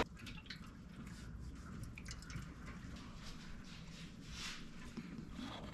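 Fresh motor oil being poured into a car engine's oil filler, faint.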